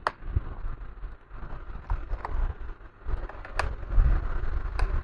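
Scattered light clicks and taps, about six in all, from a laptop being handled and worked on, over a low steady rumble.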